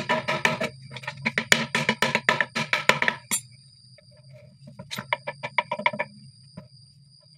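A metal tool scraping the inside of a PVC pipe fitting in quick, even strokes, about five or six a second, stopping about three seconds in. A few fainter strokes follow around five to six seconds in.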